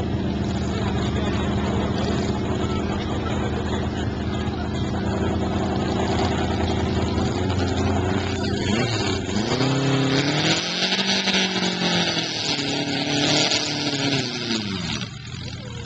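Four-cylinder pulling garden tractor engine running steadily, then revving up from about eight seconds in and held at high revs under load as it drags the weight sled, dropping back near the end.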